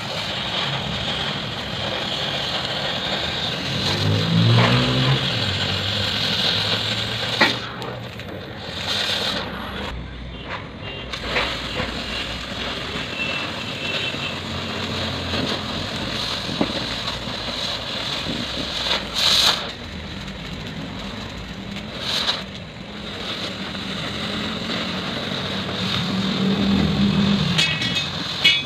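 Oxy-fuel cutting torch hissing steadily as its flame cuts through steel plate, with a few sharp clicks along the way.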